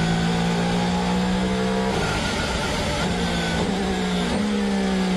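Mercedes Formula 1 car's 1.6-litre turbo V6 heard onboard, running at steady, held-down revs as a pitched drone. The pitch shifts about two seconds in and again near the end. The engine is failing and being nursed back to the pits to save it.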